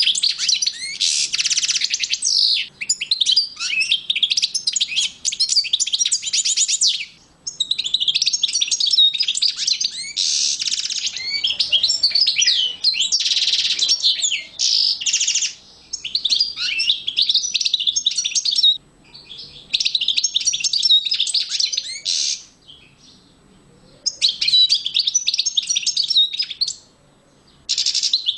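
European goldfinch song: long, fast twittering phrases with a few harsh buzzy notes mixed in, broken by short pauses.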